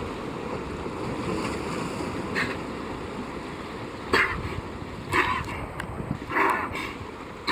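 A seal coughing: a few short, harsh coughs in the second half, the sharpest about four seconds in, over steady wind and surf noise.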